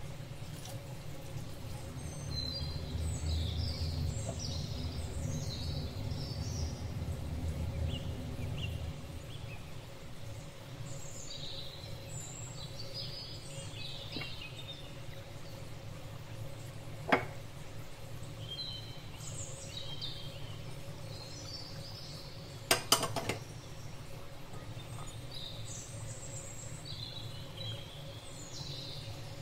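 Small birds chirping in scattered high calls over a steady low hum, with one sharp click a bit past halfway and a quick pair of clicks a few seconds later.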